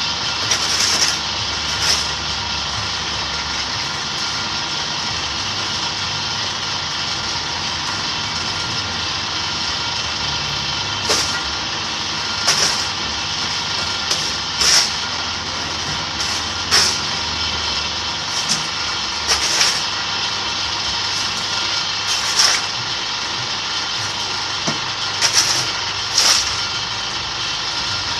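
Electric concrete-block press machine running with a steady mechanical whine from its motor. Short, sharp noises cut in about a dozen times, mostly in the second half, one to three seconds apart.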